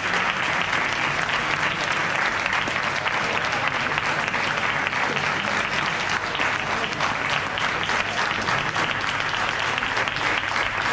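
Small seated audience applauding steadily, a dense patter of hand claps.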